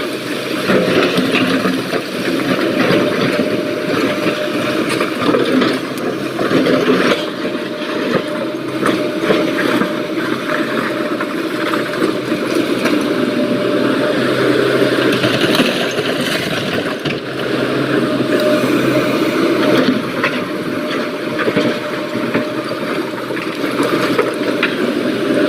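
SANY excavator's diesel engine running steadily under working load, with scattered knocks and rattles throughout.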